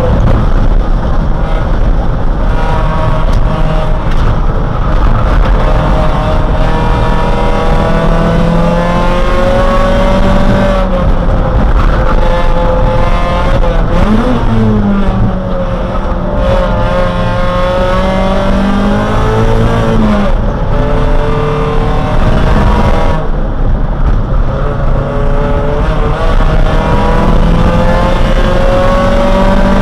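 Race car engine heard from inside the cockpit at racing speed, loud over road and wind noise. Its pitch climbs under acceleration and drops sharply at shifts and braking several times, then climbs again.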